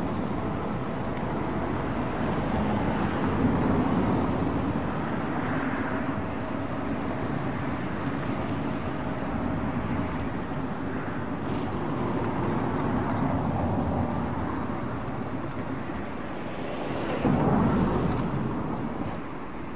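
Distant train crossing a stone arched railway viaduct: a steady running noise mixed with outdoor ambience, swelling briefly near the end.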